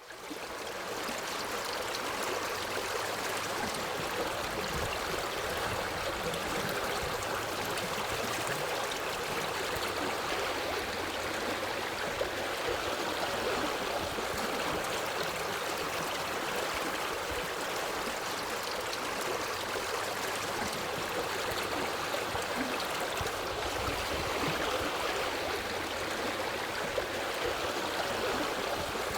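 Forest stream flowing: a steady, even rush of running water that fades in at the start.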